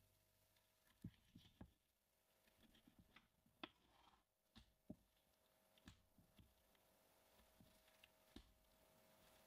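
Near silence with faint, scattered clicks and soft taps from a knife and gloved hands working a raw, deboned chicken leg on a wooden cutting board.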